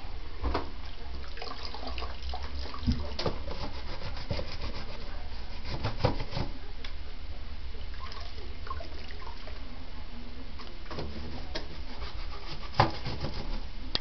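A toddler's hand rubbing and swishing in a plastic bucket of soapy water, then scrubbing on a ribbed metal washboard, with scattered knocks, the loudest near the end.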